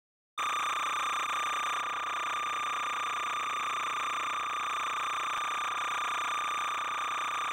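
A steady high-pitched whine with overtones over a bed of hiss, starting abruptly just after the beginning and holding at an even level.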